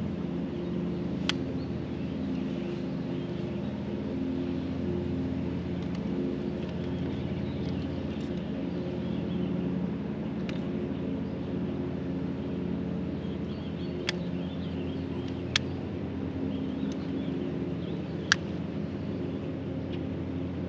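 Steady low motor hum made of several held tones, with a few sharp clicks: one about a second in and three between about 14 and 18 seconds in.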